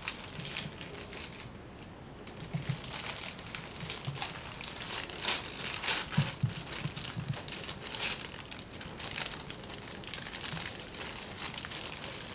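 Gift-wrapping paper being crumpled and torn open by a small child's hands, in irregular rustles and rips that grow busier about halfway through.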